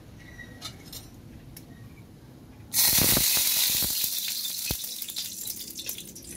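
A pan of hot oil over a wood fire bursts into a loud sizzle about three seconds in, full of crackling spatter, then slowly dies down. Before it, only faint scattered crackles.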